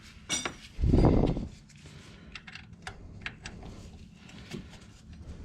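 Metal tool clinking and ticking against the external wastegate's fittings as it is adjusted, with a dull thump about a second in.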